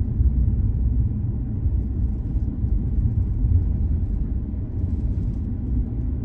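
Steady low rumble of a car driving along a country road, heard from inside the cabin: tyre and road noise with the engine underneath.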